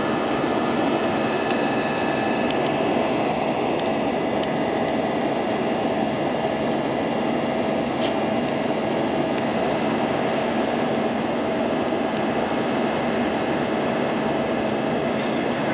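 Steady cabin noise inside an Airbus A320 climbing after takeoff: the jet engines and the airflow make an even drone with a few steady tones in it, and there are some faint ticks.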